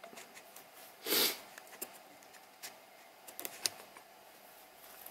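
Faint handling noises: a short rustle about a second in, then a few light clicks and taps.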